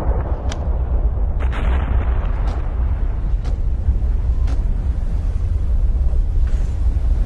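Explosive volcanic eruption rumbling heavily and continuously, with sharp blast cracks about once a second through the first few seconds.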